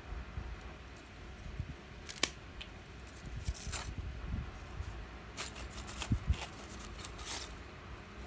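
A stack of bare printed circuit boards handled by hand: the boards click and scrape against one another as they are shifted and fanned out, giving irregular sharp clicks and brief brushing sounds, with a cluster of clicks in the second half.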